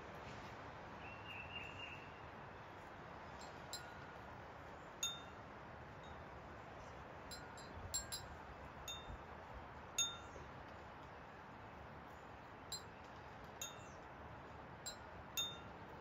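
Wind chimes ringing with a dozen or so irregular strikes, each a short bright ring, the loudest about five and ten seconds in.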